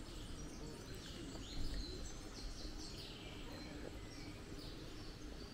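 Small birds chirping in short high notes, mostly about two to three seconds in, over a steady low background rumble.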